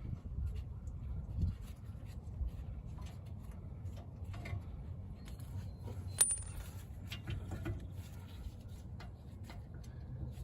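Hand tools and brake caliper hardware clinking as the front brake is taken apart: scattered small metal clicks and taps, with one sharp clink about six seconds in that rings briefly, over a low steady rumble.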